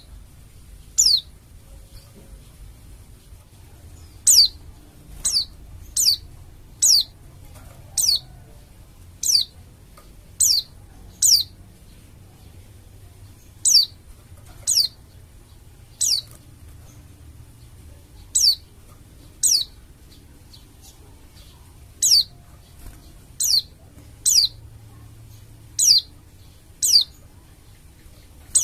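Pleci dakun Bali, a white-eye, giving a string of short, high call notes, each dropping quickly in pitch, about one a second with a few longer pauses.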